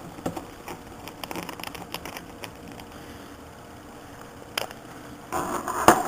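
Light, irregular clicks and taps of a small screwdriver bit working tiny Torx screws out of an iPod's metal and plastic internals, ending in a short burst of clattering handling noise with one sharp click.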